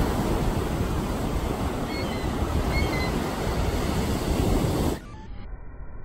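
Ocean surf breaking, with wind noise, and two short gull calls about two seconds in. About five seconds in the sound drops abruptly to a quiet, muffled hiss.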